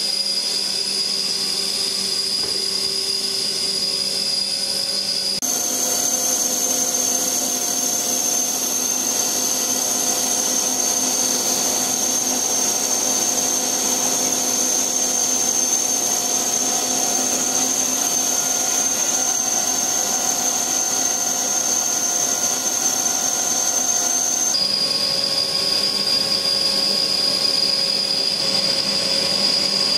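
Steady drone of polythene-sheet factory machinery running, with high steady whining tones over it. The set of tones changes abruptly about five seconds in and again near the end.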